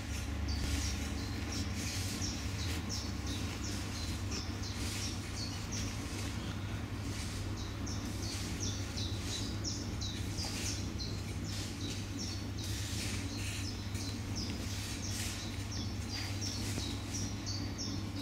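Birds chirping and twittering in quick, continuous short high calls, over a steady low hum.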